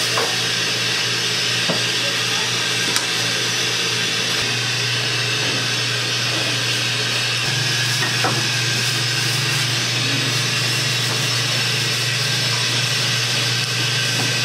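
A machine running steadily with a low hum that grows stronger about four and a half seconds in, and a few faint clicks.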